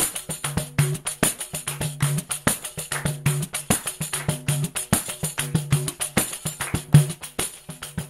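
Background music with a quick, regular percussion beat over a repeating bass line.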